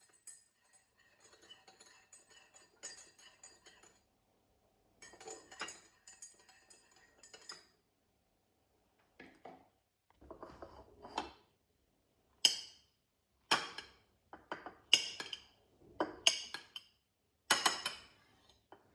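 Dishes, glassware and cutlery clinking and clattering. It starts as faint tinkling, then becomes a run of sharp, louder knocks about a second apart in the second half.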